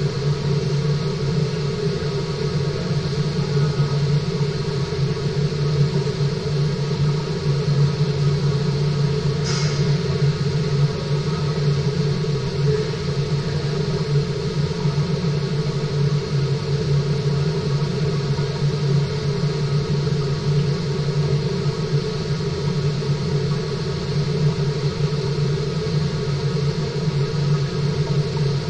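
Steady rumble and hum of water circulating through a fish-farming tank, unchanging throughout, with one faint short tick about ten seconds in.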